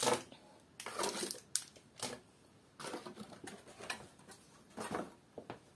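Rustling packaging and light knocks as small wrapped items and a cardboard box are handled and set down on a wooden tabletop. The sounds come in about half a dozen short bursts with quiet gaps between them.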